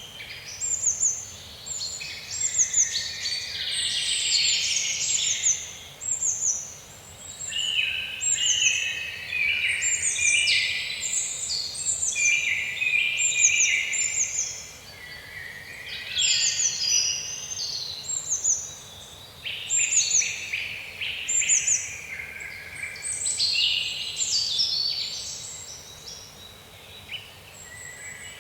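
Several small songbirds chirping and singing together, with a quick high falling note repeated many times over a busier chatter of lower chirps.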